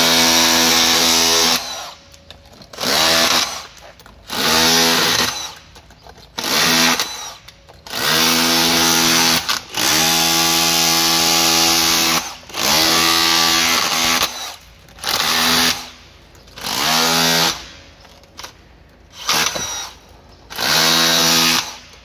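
Makita DHR182 18V cordless rotary hammer chiselling concrete with a flat chisel bit, run in about a dozen short bursts of one to four seconds with pauses between. Its motor pitch rises as each burst starts.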